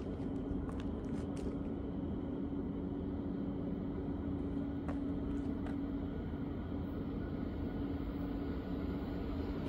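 A vehicle running steadily: an even low rumble with a constant hum, and a few faint clicks now and then.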